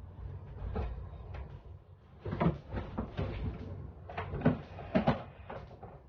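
Kitchen cupboard doors and containers being handled: a cluster of sharp knocks and clatter about two seconds in and another about four to five seconds in, over a low steady rumble.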